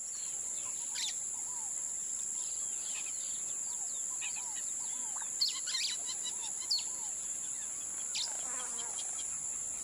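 Outdoor nature ambience: birds chirping in short calls over a steady, high-pitched insect trill.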